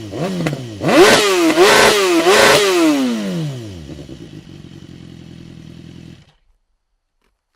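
BMW S1000R's inline-four through a full Akrapovic exhaust with dB-killer, blipped once, then revved hard three times in quick succession, falling back to a steady idle. The idle stops abruptly about six seconds in.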